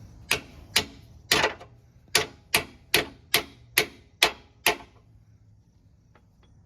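A hammer striking metal about eleven times in an even rhythm, roughly two to three blows a second, each blow ringing briefly, then stopping.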